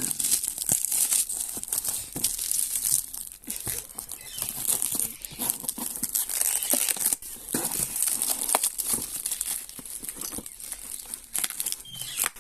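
Packaging being handled and unwrapped: continuous crinkling and rustling with many small crackles and clicks.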